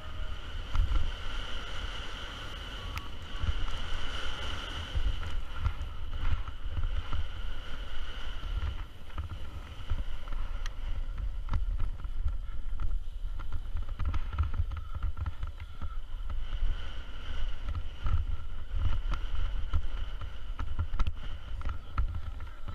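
Wind buffeting the microphone of a helmet-mounted camera on a BMX rider racing down the start hill and around the track, a heavy uneven rumble, with a steady whirr above it.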